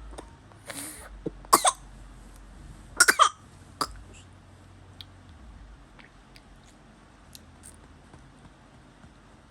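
A sleeping baby coughing: a small cough near the start, two quick coughs about one and a half seconds in, a burst of three about three seconds in and one more just after, then quiet breathing-level sounds.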